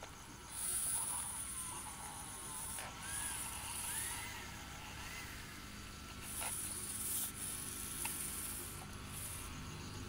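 Radio-controlled toy Caterpillar bulldozer's electric drive running in short spurts as it tracks over loose dirt: a high hiss that starts and stops several times.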